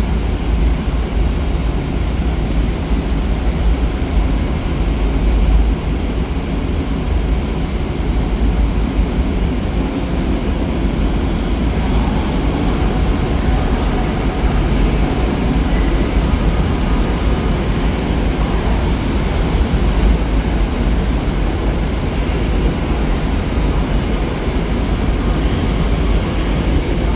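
Train moving along the platform tracks: a steady, loud rumble with faint tones above it.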